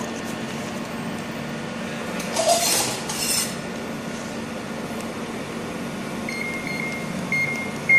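Steady low hum of a UV laser marking machine, with two brief rustles of the plastic bag being handled around the middle. A faint, broken high whine comes in near the end.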